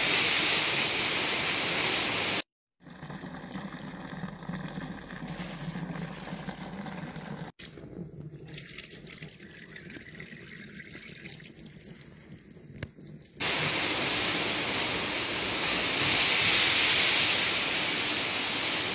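High-pressure washer spraying water across a wet poultry-house floor, a steady loud hiss. It cuts off after about two and a half seconds, leaving a much quieter stretch with a low hum, and the spraying comes back about thirteen seconds in.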